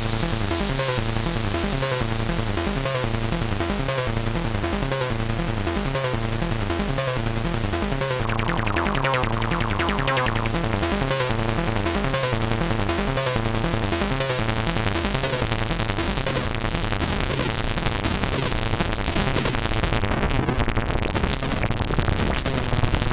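Behringer MS-1 analog monosynth playing a repeating pattern of bass-heavy notes. Its tone brightens and darkens over the passage as the filter sliders are moved, turning dull for a moment near the end before opening up again.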